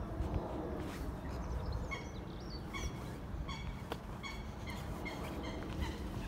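Birds calling: a run of short repeated call notes, each with bright overtones, starting about two seconds in and coming in quick clusters until near the end.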